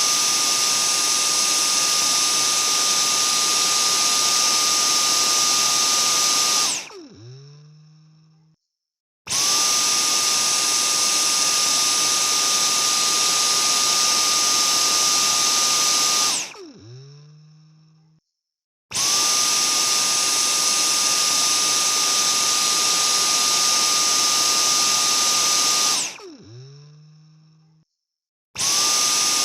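Vacuum cleaner motor switched on and off repeatedly: each time it starts up to a loud steady run with a high whine, runs about seven seconds, then is switched off and winds down with falling pitch before a short silence. This happens three times, with a fourth start near the end.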